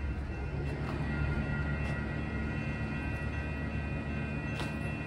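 SMART diesel multiple-unit train running: a steady low engine rumble with a faint high whine held over it, and a few light clicks.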